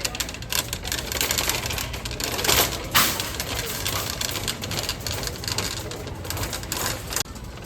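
Dense, irregular clicking and clattering, with a sharp knock about three seconds in; it stops shortly before the end.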